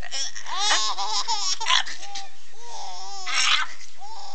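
A baby laughing in high-pitched squeals and giggles, set off by fake sneezes. Two short breathy bursts come about a second and a half in and again near three and a half seconds.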